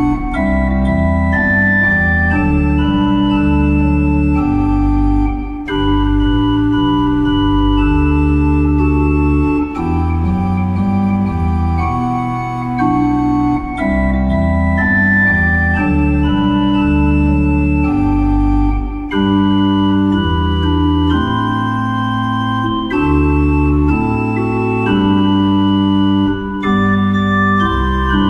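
Instrumental hymn backing track with no singing: organ-toned keyboard playing slow held chords under a melody line, the chords changing every second or two.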